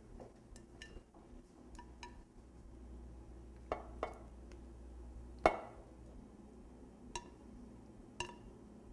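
A spatula scraping and knocking against a glass mixing bowl while a potato mixture is emptied out, with scattered clinks. The loudest knock comes about five and a half seconds in.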